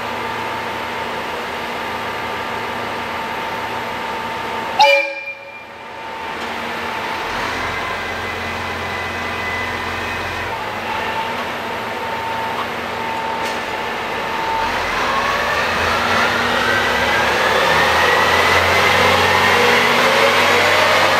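KiHa E130-series diesel railcar giving one short blast of its horn about five seconds in, then pulling away. Its diesel engine's rumble builds, and a rising whine climbs steadily as the train gathers speed.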